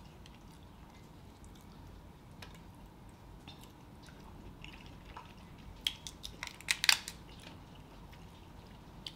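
Shells of boiled Dungeness crab legs being cracked and picked apart by hand, with chewing. Scattered short cracks and clicks, the loudest cluster about six to seven seconds in.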